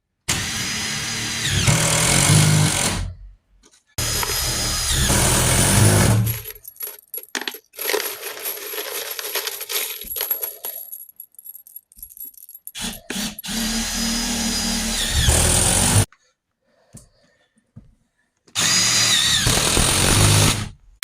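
Power tool running in short bursts of a few seconds each, its pitch gliding as it speeds up and slows, broken by abrupt cuts to silence.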